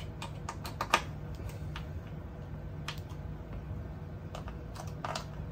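Scattered light clicks and taps of metal parts being handled as the 3D printer's bed is worked on its new linear rails, with a faint steady low hum underneath.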